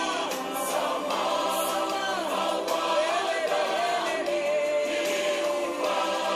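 Choir singing a gospel song, several voices in harmony, with one note held for over a second about four seconds in.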